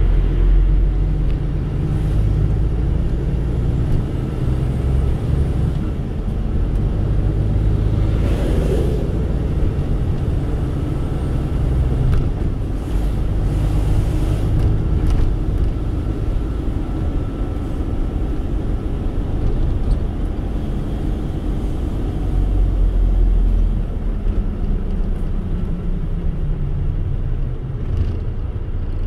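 A car driving, heard from inside the cabin: a steady low rumble of engine and tyres on the road. Other vehicles whoosh past about 9 seconds and 14 seconds in, the second one a truck. Near the end the rumble drops in pitch as the car slows down.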